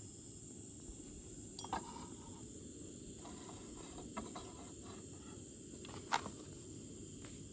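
Crickets chirping in a steady high-pitched drone, over a low outdoor rumble, with a few light clicks or knocks, the sharpest about six seconds in.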